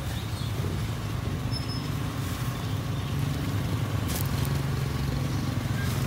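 Car engine idling steadily as a low hum, with a couple of faint knocks about two and four seconds in.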